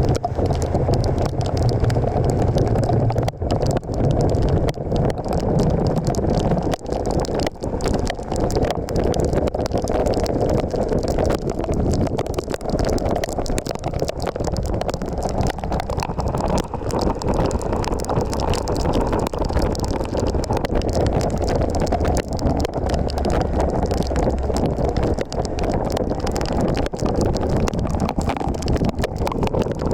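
Wind buffeting the microphone while riding a Suzuki V-Strom 1050XT motorcycle, with its V-twin engine running steadily underneath the rushing air.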